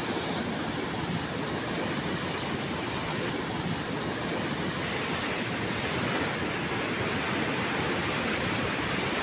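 Water gushing out of a dam outlet and churning in the river below: a steady, dense rush of turbulent water that grows a little hissier about halfway through.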